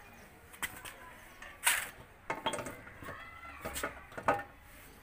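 A handful of sharp metallic clinks and knocks, the loudest about a second and a half in, as a Royal Enfield Bullet's front wheel with its drum brake plate is lifted into the fork and the brake plate's slot is seated on the fork's locating lug.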